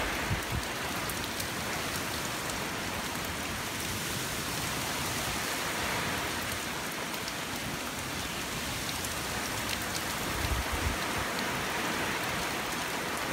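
Steady rain pouring down from a hurricane's outer rain band, an even hiss with the patter of drops. A brief low rumble rises and falls about ten seconds in.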